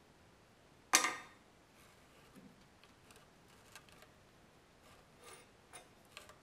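A sharp clack with a short ring about a second in, then scattered light clicks and taps as the broken pliers and their snapped-off handle piece are handled on a steel block.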